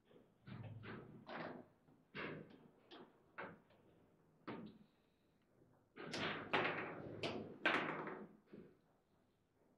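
Table football table in play: a run of separate knocks and clacks as the ball is struck by the rod-mounted figures and rebounds around the table, then a quicker, louder flurry of hits about six to eight seconds in.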